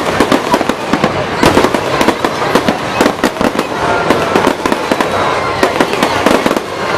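Fireworks display: a dense, unbroken run of sharp bangs and crackling pops from exploding shells, many a second.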